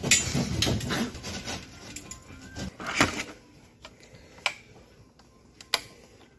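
Hand tool scraping and cutting at the edge of a hole in a gypsum board ceiling in quick rough strokes, enlarging it to fit a downlight. The strokes fade out, there is a sharp knock about three seconds in, and then a few isolated sharp clicks.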